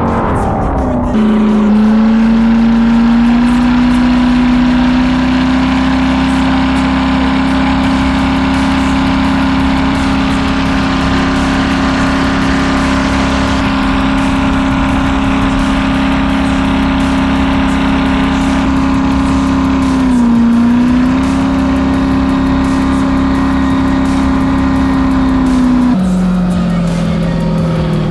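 6.0-litre LS V8 in a jet ski running hard at a steady high speed, with water and spray rushing past. Its pitch falls and settles within the first second or two, dips briefly about two-thirds of the way through, and drops to a lower, steady note near the end.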